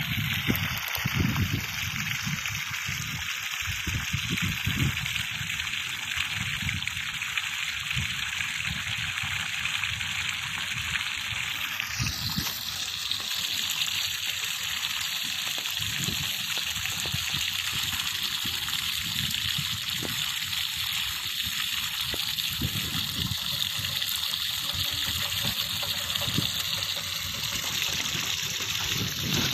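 Steady rushing, gushing water, with an abrupt change in its sound about twelve seconds in.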